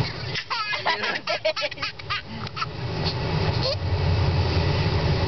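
Toddler laughing hard from being tickled under the arms, a rapid run of giggles for the first few seconds, then one short rising squeal. Underneath is the steady low hum of the car.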